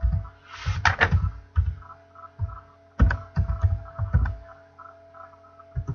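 Typing on a computer keyboard: two quick runs of keystrokes, the second starting about three seconds in, and a single key press near the end.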